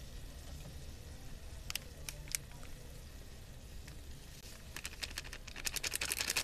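Plastic seasoning sachet crinkling as it is handled and shaken out over a pot. There are a few light clicks at first, then a dense, rapid crackle that builds in the last second and a half.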